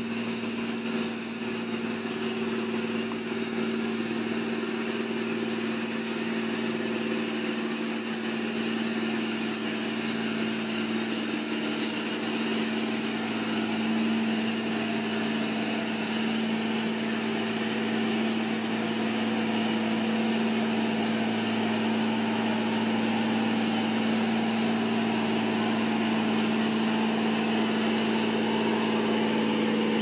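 Loaded logging truck's diesel engine running at a steady low speed as it works down a muddy dirt road, getting gradually louder as it comes closer.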